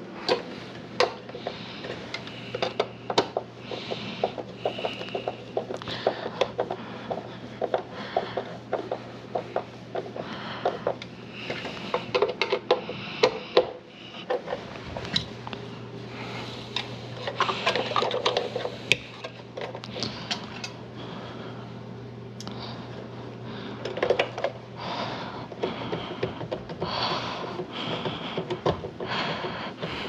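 Hard plastic parts of a Miele canister vacuum's lid housing being handled and fitted together by hand: frequent irregular clicks, knocks and scraping, over a low steady hum.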